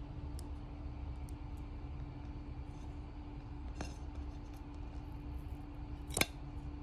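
Small metal scissors closing once on the leaf stem of a variegated Monstera adansonii, a single sharp snip about six seconds in, with a fainter click a couple of seconds earlier. A steady low hum runs underneath.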